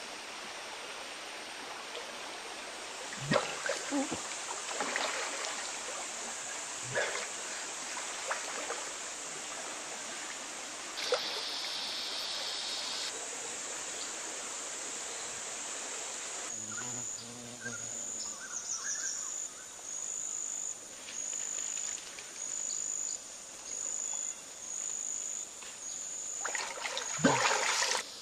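Outdoor water sounds with scattered splashes, then, after about sixteen seconds, an insect calling in even pulses a little over a second apart.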